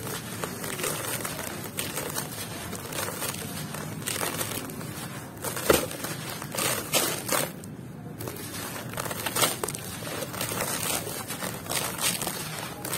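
Dry sand-and-cement moulded shapes being crushed and crumbled by hand: gritty crunching and crackling, with loose grit running and spilling into a plastic tub. The crunches come irregularly, the loudest about halfway through.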